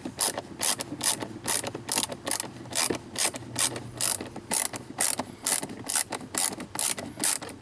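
Ratcheting driver clicking steadily, about four clicks a second, as it drives in a T-15 Torx bolt holding the glove compartment.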